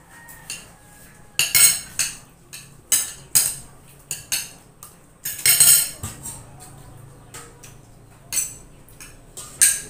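Metal spoons and forks clinking and scraping against plates and steel pots as people eat, in a string of irregular sharp clinks with a longer clatter about halfway through.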